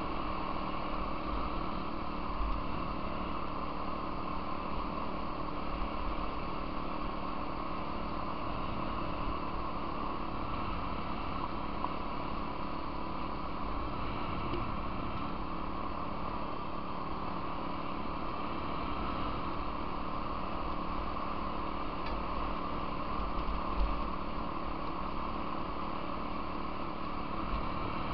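Off-road vehicle engine running at a steady cruising speed on a gravel trail, the pitch holding level, with wind buffeting the microphone. There is a brief knock near the end.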